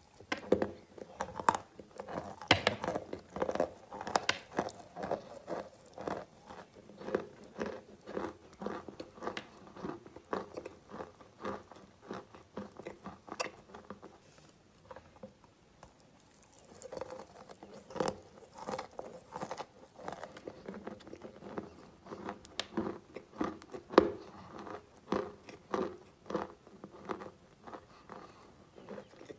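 Blocks of white chalk being bitten and chewed close up, some dry and some moistened: a steady run of sharp crunches and snaps with quieter chewing between bites, the loudest snap about 24 seconds in.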